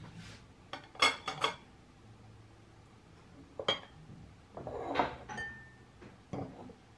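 Tableware clinking as dishes, bowls and cutlery are set down on a table: a quick run of clinks about a second in, single clinks in the middle, another cluster near five seconds.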